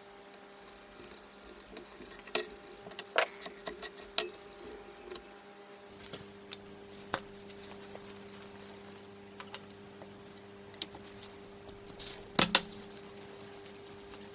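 Scattered clinks and knocks of metal engine parts and hand tools being handled on a workbench, loudest about three seconds in and twice near the end, over a faint steady hum.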